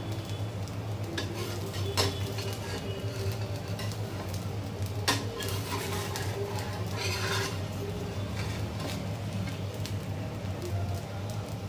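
Metal spatula tapping and scraping on a pan while a dosa cooks, with a faint sizzle: two sharp taps about 2 and 5 seconds in, and a brief scrape a little later. A steady low hum runs underneath.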